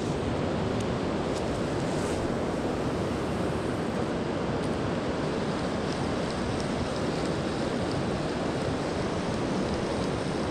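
Steady rush of a fast-flowing river, an even unbroken noise of moving water.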